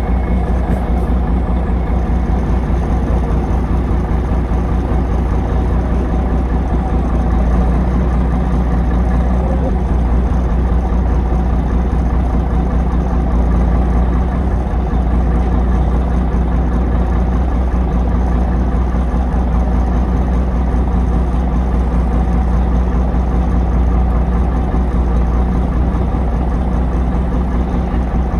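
Heavy truck engine running steadily with an even, low hum.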